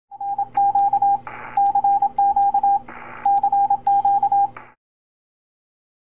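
Morse code tone keyed in short and long beeps, broken twice by a brief burst of radio static, and stopping suddenly a little under five seconds in.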